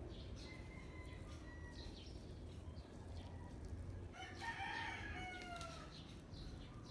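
A rooster crowing once, about four seconds in, the call falling in pitch at its end, faint over steady background noise.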